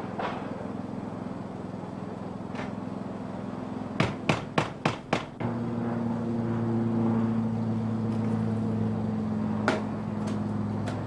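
Hammer driving nails through the flange of a metal gable end vent: five quick blows about four seconds in, with a steady low hum underneath.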